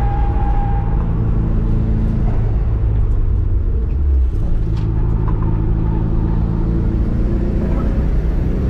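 Subaru Impreza GC8's EJ207 turbocharged 2.0-litre flat-four engine running on track at a fairly steady pitch. Its note breaks briefly about four seconds in, then carries on.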